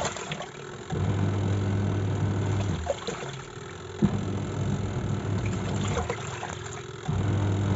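Semi-automatic top-load washing machine on its wash cycle: the motor hums in spells of about two seconds with short pauses between, as the pulsator churns the clothes in water, pausing where it reverses direction. There is a single knock about four seconds in.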